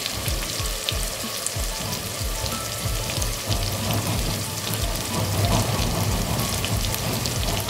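Chopped onions, tomato, ginger and garlic frying in hot oil in an open pressure cooker, a steady sizzle with fine crackling, the masala at the frying stage just after the ground spices and salt go in. A steady low beat of background music runs underneath.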